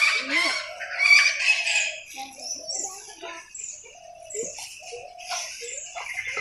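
Small birds chirping over and over in short, high, falling notes, with domestic chickens clucking lower down.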